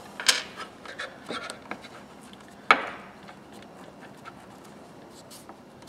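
Steel oil filter pliers handled on a countertop: a few light clicks and knocks, the sharpest about two and a half seconds in, then faint rubbing of a rag over the metal.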